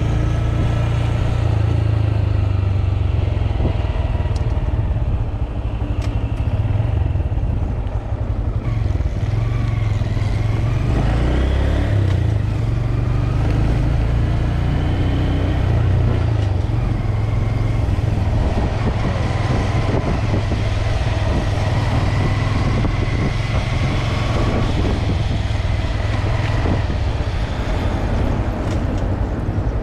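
Small motorcycles ridden at low speed, their motor note rising and falling with the throttle, over a steady wind rumble on the handlebar microphone.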